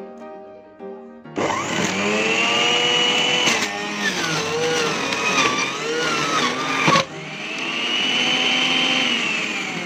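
Philips HR1811 350-watt centrifugal juicer's motor starting up and running at speed while it grates pieces of coconut pushed down the feed chute; its whine dips and wavers as the coconut is pressed in. It cuts off abruptly about seven seconds in, and a second run swells up and then fades away. Soft piano music plays in the first second.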